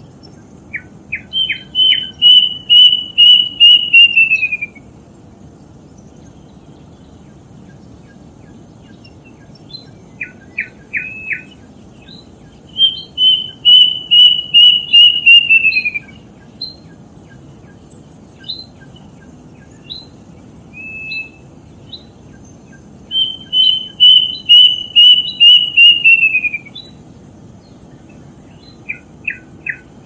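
Plaintive cuckoo (kedasih) singing three times: each phrase starts with a few short notes, then runs into a quick series of about nine clear whistles that speed up and fall in pitch at the end. A steady low hiss lies under the song.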